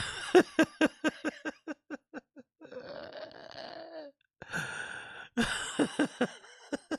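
A man laughing: a quick run of short laughs that trails off, a breathy wheezing exhale, then another burst of laughter about five and a half seconds in.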